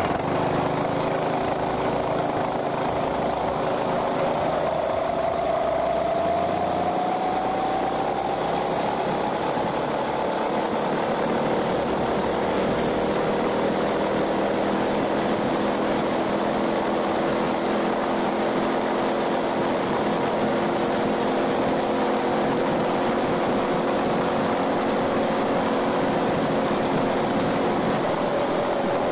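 Phatmoto hybrid motorized bike, with a 48 V rear electric hub motor, riding along the road. A steady motor hum with a whine that rises in pitch over the first several seconds as it picks up speed, over a constant rush of wind.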